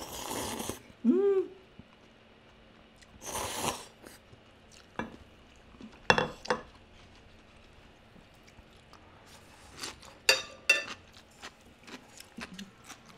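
Slurping noodle soup from a ceramic bowl, with a short hummed vocal sound just after, a second slurp about three and a half seconds in, then scattered light clicks and clinks of chopsticks and dishes.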